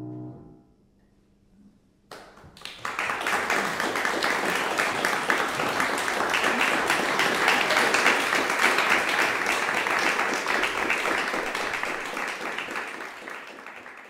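The last piano chord dies away, and about two seconds in an audience breaks into applause, which keeps on steadily and fades near the end.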